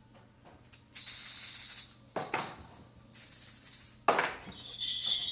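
A percussion instrument with metal jingles, such as a tambourine, shaken twice in bursts of about a second, each followed by a shorter shake or tap. It is being tried out as an imitation of birdsong. Near the end a high ringing tone starts, like a small struck bell.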